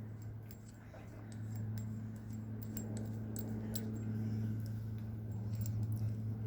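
Light metallic clicks and taps as a nut and washer are fitted by hand onto a roller skate truck's kingpin, scattered irregularly over a steady low hum.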